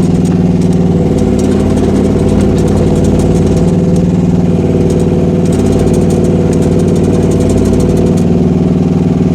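Gasoline engine of a Rippa R10 mini excavator running steadily while the machine is driven on its tracks, with its low hum swelling and easing now and then as the load changes.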